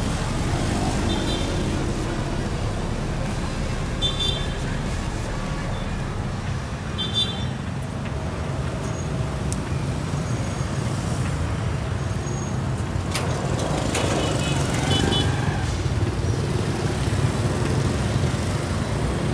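Street traffic, mostly motorbikes and cars passing, a steady low rumble, with a few short high beeps.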